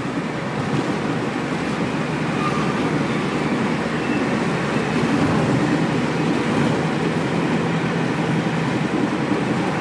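Steady road noise heard from inside a moving car's cabin: tyre rumble and an even engine hum, with no sudden events.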